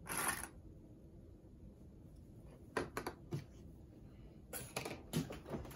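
Hands handling flannel fabric and plastic sewing clips: a short rustle right at the start, then a few faint clicks and rustles in the second half.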